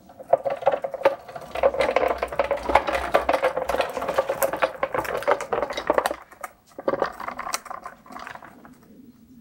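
Small caster wheels of a wooden plant dolly rattling as it is rolled across rough concrete, for about six seconds, then a few shorter rattles near the end.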